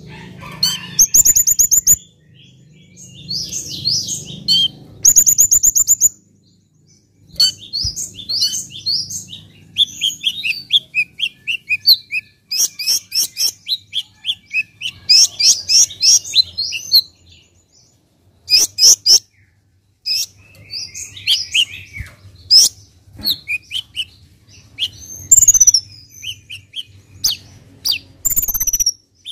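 Male Van Hasselt's sunbird (kolibri ninja) singing: rapid bursts of high chirps, twitters and fast trills with short pauses between them.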